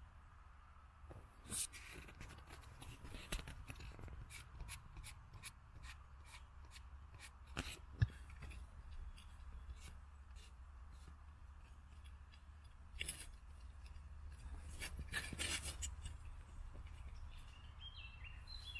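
Camera handling noise: faint scattered clicks and short rustles as the camera is set and adjusted low among grass stems, with a few louder knocks, over a steady low rumble.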